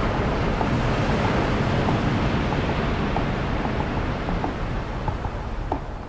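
Ocean surf breaking: a loud, steady rush of waves.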